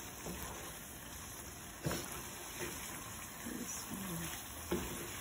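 Chicken and masala sizzling in oil in a frying pan on low heat while a wooden spatula stirs and scrapes through it: the bhuna stage, once the liquid has cooked off. Two sharp knocks of the spatula against the pan, about 2 seconds in and near the end.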